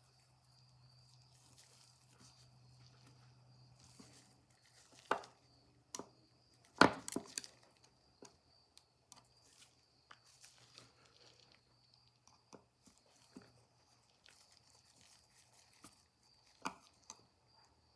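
Scattered small clicks and knocks of metal parts being handled as the end piece of a Victrola phonograph's spring-motor governor is taken off. The loudest is a sharp knock about seven seconds in. A faint steady low hum runs underneath.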